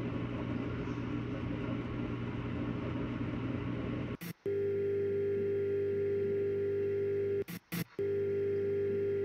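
Computer-generated sound effects from a simulated soldering robot. A steady whirring hum plays for about four seconds. After a brief cut it gives way to a steady electric buzz with a clear pitch, which stops for a moment and starts again. The buzz comes in spells of about three seconds while the soldering tip rests on the part.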